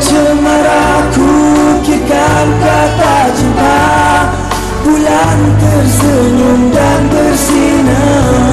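Live band playing a Malay pop ballad, with a male singer carrying the melody.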